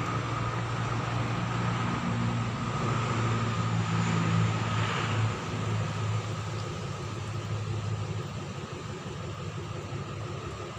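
Diesel locomotive, an Alsthom unit re-engined with an MTU diesel, idling with the train standing at the platform: a steady low hum that eases off somewhat in the second half.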